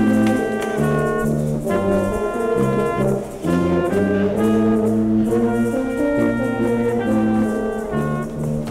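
Brass ensemble playing held chords, trombones and trumpets in harmony over a low bass line, the chords changing every second or so.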